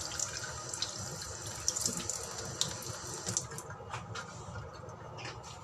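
Kitchen tap running into a sink while hot blanched chicken is rinsed under it. The water fades out about two-thirds of the way in, followed by a few light knocks.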